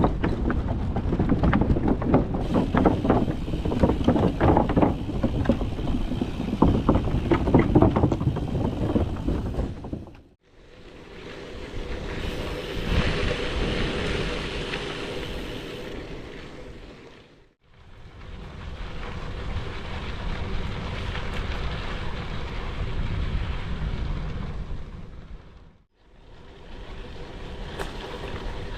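Strong wind buffeting the microphone. A heavy, gusty rumble runs for about the first ten seconds, then steadier rushing noise with a faint steady hum, broken by three abrupt cuts.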